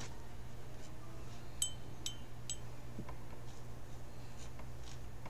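Three light ringing clinks about half a second apart, like a paintbrush tapped on the rim of a glass water jar, over a steady low hum, with a few faint ticks.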